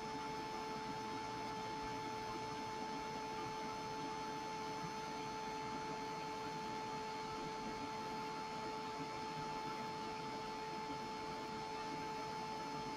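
Handheld heat embossing tool running steadily, its fan motor giving an even hum with a whine and a hiss of blown air while it melts embossing powder on an MDF bauble.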